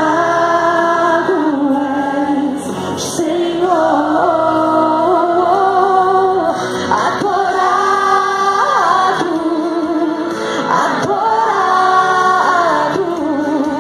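A woman singing a slow worship song into a handheld microphone, holding long notes that glide from pitch to pitch.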